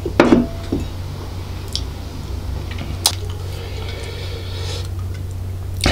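A glass beer mug set down on a wooden board with a loud knock, followed by a lighter click. About three seconds in there is a sharp click as an aluminium beer can is handled, then a faint hiss, all over a steady low hum.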